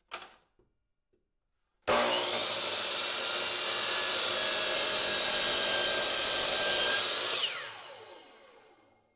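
DeWalt 10-inch compound miter saw switched on about two seconds in, its blade cutting through a laminated plywood block, then switched off about seven seconds in and winding down with falling pitch. A faint brief knock comes just before the saw starts.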